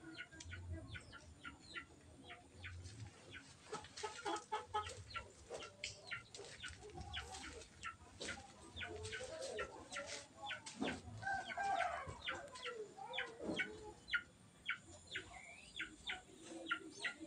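Birds calling at a pigeon farm: a dense, irregular stream of short high chirps and peeps, with lower clucking calls mixed in.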